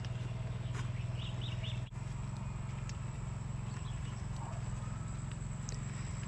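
Steady low hum of outdoor background noise, with a small bird giving three quick chirps about a second in.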